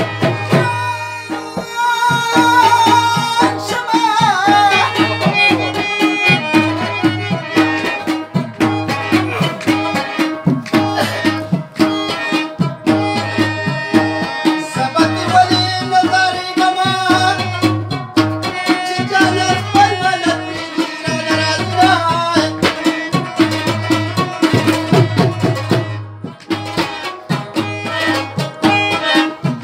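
Live Pashto tappay folk music. A laced barrel drum (dholak) is played by hand in a steady rhythmic beat under a wavering melody line.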